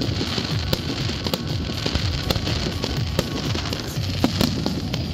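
Fireworks display going off: a rapid, irregular run of pops, bangs and crackles from bursting shells and comets, with music playing along.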